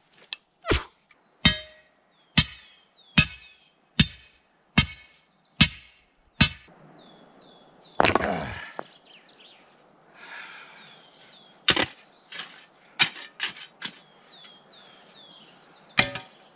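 Steel tool striking bedrock to break it: eight evenly spaced ringing blows, a little under one a second, then a longer rough sound about eight seconds in and a few more scattered blows.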